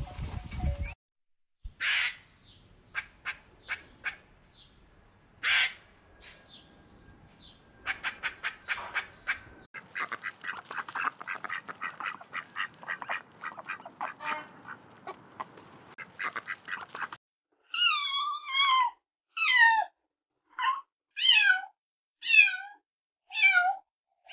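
A duck bathing on water, splashing with sharp bursts that grow into dense, continuous splashing. Then, about seventeen seconds in, a kitten meows loudly and repeatedly, each meow falling in pitch.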